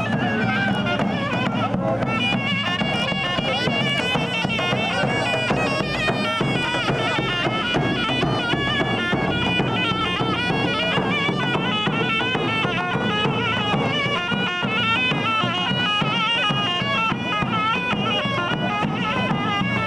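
Traditional folk dance music on a reed wind instrument: a shrill, fast, ornamented melody played without pause over a steady low tone, accompanying a line dance.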